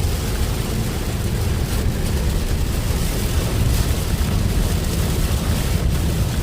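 Heavy rain beating on a moving car, heard from inside the cabin: a steady rush of rain and wet-road noise over a deep rumble from the car on the road.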